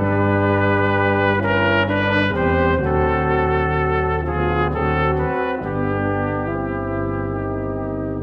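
Brass ensemble of trumpet, French horn, trombone and tuba playing a slow hymn in chordal harmony over a sustained bass line, the chords changing every half second or so. It settles on a long held chord about two-thirds of the way through.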